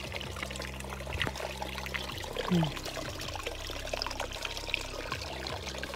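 Small creek trickling and gurgling over rocks in a shallow stream bed, with a brief low falling sound about two and a half seconds in.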